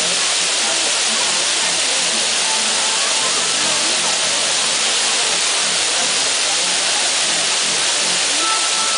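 Water from a large fountain's many jets spraying and splashing down, making a steady hiss.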